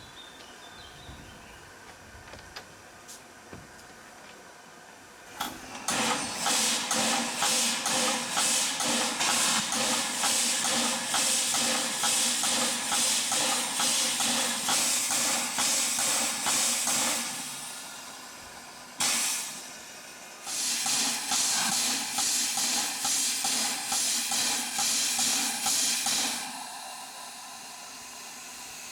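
Narrow-gauge steam locomotive blowing off steam: a loud hiss with a quick pulsing about twice a second, starting about six seconds in and dying away. A sharp click follows, then a second spell of hissing that stops suddenly.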